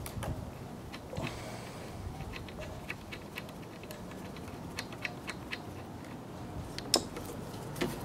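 Scattered light clicks and taps of hands working a Tecumseh carburetor and its throttle linkage loose on a lawnmower engine, with a sharper click about seven seconds in.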